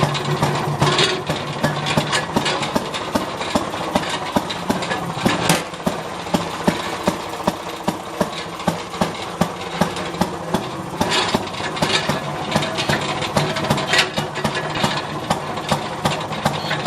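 Small gas engine fitted to a Maytag washing machine, running steadily with a rapid, even beat of firing strokes.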